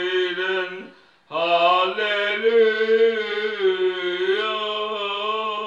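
Older man singing a hymn unaccompanied, drawing out long held notes: one breaks off about a second in, and after a short breath a second long note with a slight wobble in pitch carries on almost to the end.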